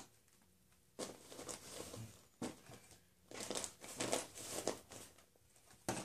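Handling noise from a Hoover WindTunnel Supreme upright vacuum as its see-through plastic bag door is taken off: several bouts of rustling and plastic scraping, with a sharp click near the end.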